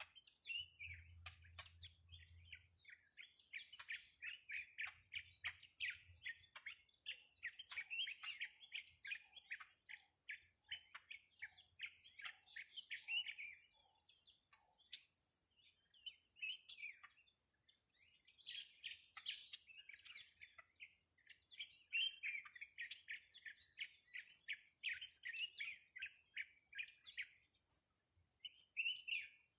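Small songbird singing in long runs of rapid, high chirps, with a short lull about halfway through.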